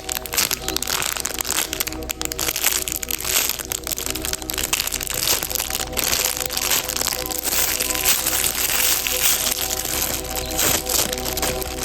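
Background music with steady held notes, over continuous crinkling and crackling as something squishy is squeezed and handled.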